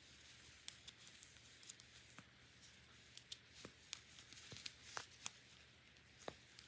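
Faint, irregular clicks and ticks of metal knitting needles, with yarn rustling, as stitches are knitted and slipped along a row of ribbing.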